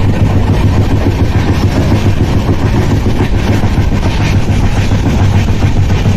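Passenger train running along the track: a loud, steady rumble with a low hum underneath.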